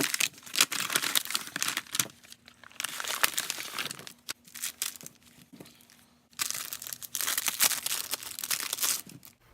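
Packaging being unwrapped by hand, crinkling and rustling in three stretches with short pauses between.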